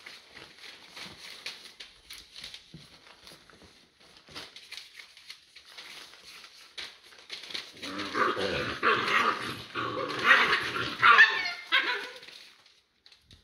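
American Staffordshire terrier x American bulldog puppies play-fighting: faint scuffles and small clicks of paws on newspaper, then about eight seconds in a loud burst of barking and yapping lasting about four seconds, with a brief whimper near its end.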